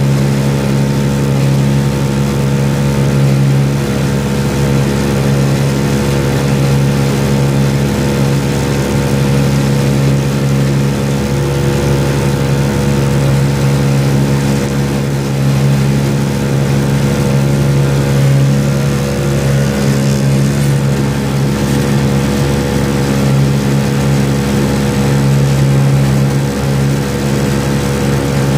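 A boat's motor running steadily at constant speed, a loud unbroken drone with no change in pitch.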